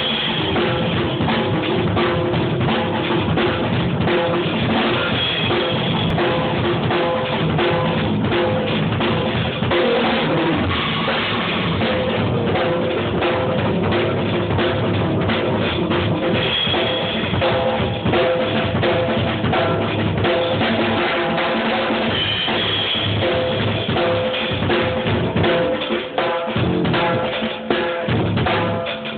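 Drum kit played live as a fast drum-and-bass drum solo: a dense, unbroken run of snare and kick drum strokes with cymbals.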